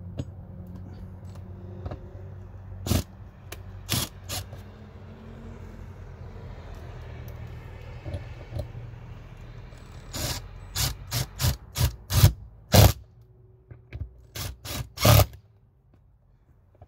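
Power drill driving screws to mount a new outdoor hose bibb to the wall: a steady motor hum with sharp knocks, a few early on and a quick run of them in the last few seconds before the hum stops.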